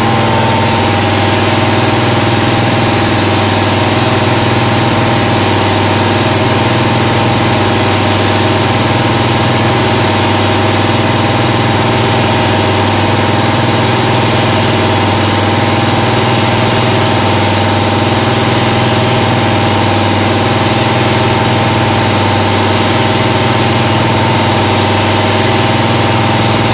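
1995 Haas VF-3 CNC vertical mill running, its endmill cutting pockets in an aluminium block: a steady hum with several held tones over a hiss, unchanging.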